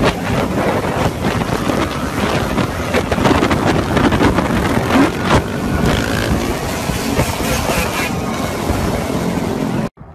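Dirt bike engines running close by, with heavy wind buffeting the phone microphone. The sound cuts off suddenly near the end.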